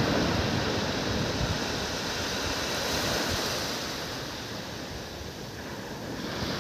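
Sea surf washing up the beach, with wind rumbling on the microphone. The wash fades over a few seconds and swells again near the end.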